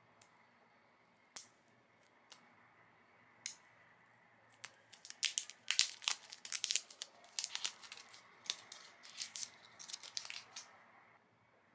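Thin plastic film crinkling and tearing as it is picked and peeled off an Apple Pencil 2 with the fingertips. A few single crackles at first, then a dense run of crinkling from about four and a half seconds in that stops shortly before the end.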